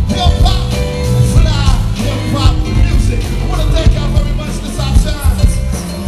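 Live stage music through a PA system: a performer's amplified voice over a loud beat with heavy bass.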